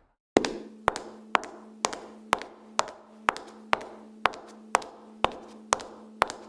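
High-heeled shoes clicking on a hard floor at a steady walking pace, about two steps a second, each click trailing a short echo. The steps begin after a brief silence, with a faint steady hum underneath.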